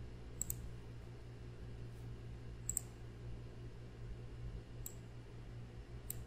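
Computer mouse clicking about five times at uneven intervals, some clicks doubled as press and release, over a steady low hum.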